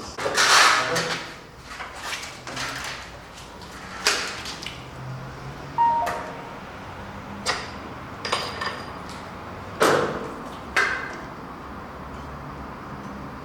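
Handling noises from uncrating a motorcycle: a series of scrapes, knocks and rattles, the loudest about half a second in and the rest spread over the next ten seconds, with a brief squeak near the middle.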